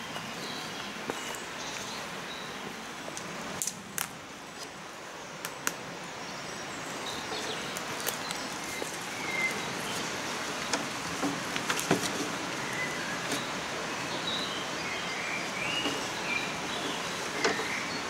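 Footsteps and twigs snapping underfoot on a stony, muddy stream bank, with woodland birds chirping now and then, mostly in the second half, over steady outdoor background noise.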